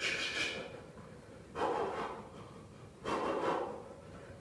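A man breathing hard from exertion during high-intensity shadowboxing: three heavy exhalations about a second and a half apart.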